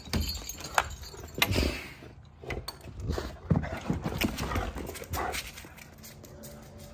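Irregular knocks and scuffs as a sliding glass patio door is opened and a Great Dane's feet go over the threshold onto the pavers, the loudest knocks about a second and a half and three and a half seconds in, dying away after about five seconds.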